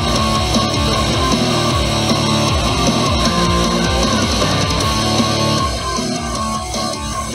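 Hardstyle music playing loud through a JBL Boombox 2 portable Bluetooth speaker: an instrumental stretch without vocals, with heavy bass and a dense distorted lead. The music drops a little in level about six seconds in.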